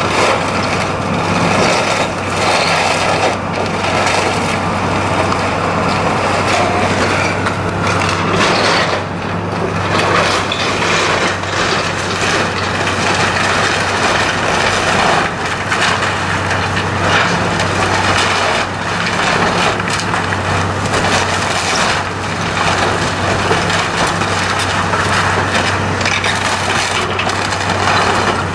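Demolition of an old wooden mill building: a heavy machine's engine runs with a steady hum under continual crushing, cracking and splintering of timber.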